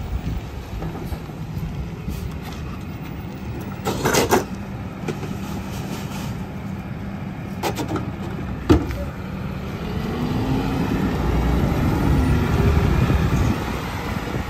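Rear-loader garbage truck's engine idling, with clanks and bangs as a trash can is tipped and knocked against the rear hopper about four and eight seconds in. From about ten seconds the engine revs up and the noise swells while the packer runs to compact the load, then eases off near the end.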